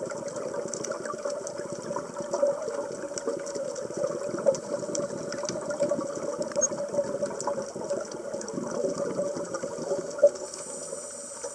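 Scuba divers' regulator bubbles heard underwater: a muffled, steady crackle and fizz of exhaled air, with a single sharp knock about ten seconds in.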